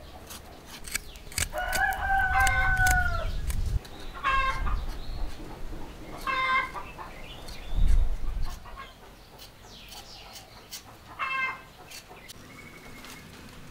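A rooster crows once, a long held call about two seconds in, and chickens give short calls three more times. There is low rumbling at the start and a low thump about eight seconds in.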